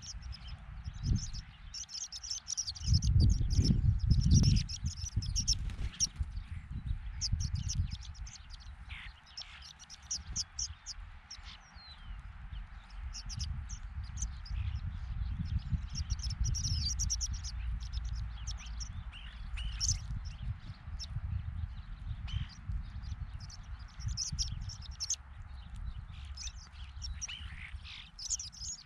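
A flock of horned larks and Lapland longspurs calling with many short, high chirps scattered throughout. Under them runs a low rumble, loudest about three to five seconds in.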